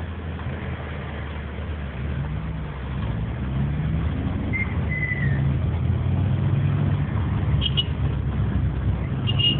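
Car engine and road noise heard from inside the cabin, the engine note climbing and getting louder a few seconds in as the car picks up speed. A few brief high chirps sound over it near the middle and the end.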